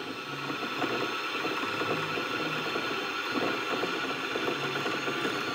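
Brother SM1400 sewing machine's motor running fast to wind a bobbin: a steady whirring of the motor and the spinning winder spindle.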